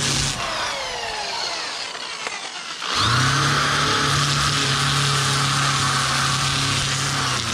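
Corded drill spinning a Sand-o-flex flap sanding wheel. It is let off just after the start and winds down over about two seconds, then starts again about three seconds in and runs steadily, the flaps brushing over the carved wood.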